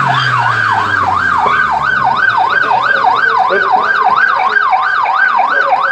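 Police car siren in a fast yelp, a loud wailing tone sweeping up and down three to four times a second without a break.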